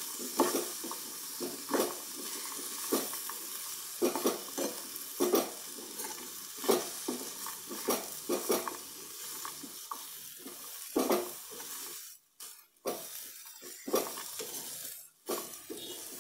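A spoon stirring and scraping a pan of dates, cashews, raisins and chopped cherries frying over the heat, with a steady sizzle under it. The scrapes come roughly once a second, and the sizzle breaks off briefly twice near the end.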